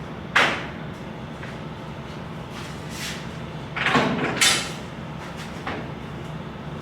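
A sharp bang about half a second in, then a cluster of knocks and scraping around four seconds in, over a steady low engine hum.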